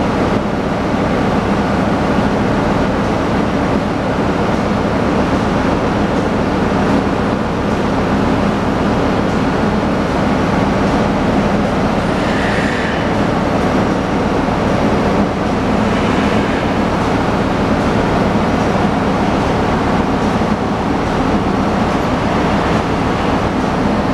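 Loud, steady engine-room machinery din: a dense mechanical rumble with a fast flutter in the low end, with a brief soft hiss about halfway.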